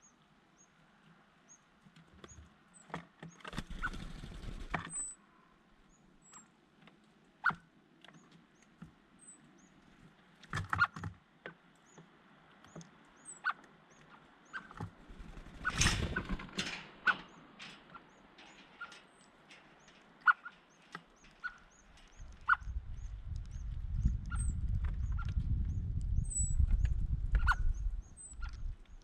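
Small birds giving short, high, thin chirps throughout, among scattered sharp taps and clicks and brief rustling bursts. Near the end a low rumble comes in for about five seconds.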